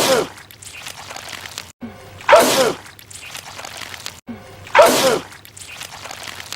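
A man sneezing loudly, the same sneeze heard three times about two and a half seconds apart. Each is a short rising 'ah' followed by a loud burst that falls in pitch, with an abrupt cut before each repeat, as in a looped edit.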